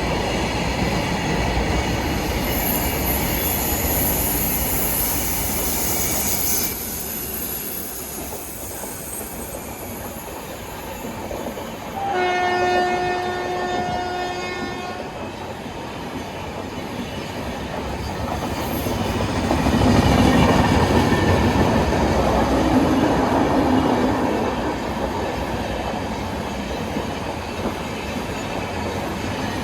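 A passing Indian Railways train running on the rails. Its horn sounds once, a steady tone held about three seconds, near the middle. A louder rumble follows a few seconds later.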